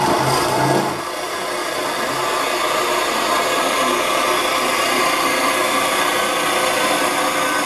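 Homemade electric coconut grater, a motor on a metal stand, running steadily while a half coconut is pressed against its spinning grater head and the flesh is shredded off.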